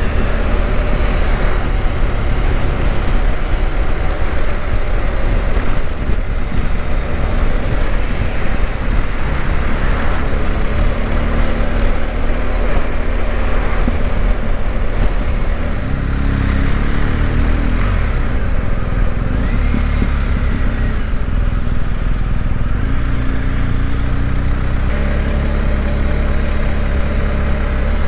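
Motorcycle engine running at low town speed, heard from the bike itself with wind and road noise over it; the engine note rises and falls with the throttle around the middle and runs steadier near the end.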